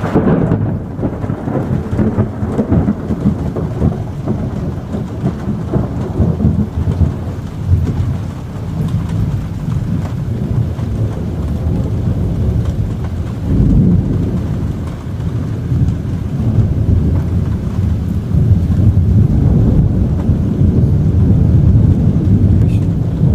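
Thunder rolling in a long, continuous low rumble that swells and fades several times, loudest about fourteen seconds in.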